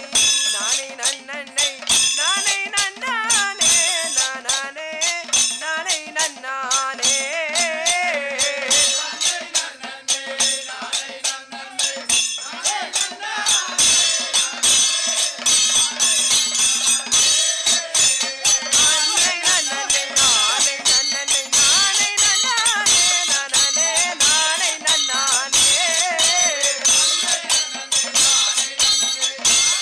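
Kanniyarkali folk music: men singing a folk song over a fast, steady beat of a hand drum and ringing small cymbals.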